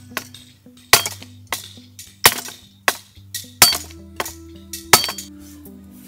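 Machete chopping branches: a series of sharp, hard chops, roughly one or two a second, some harder than others, over background music.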